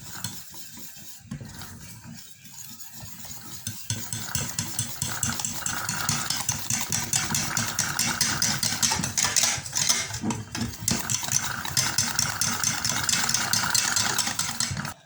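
Two eggs and cornstarch being beaten together in a bowl, with quick, steady strokes of the utensil against the bowl that grow louder and denser about four seconds in.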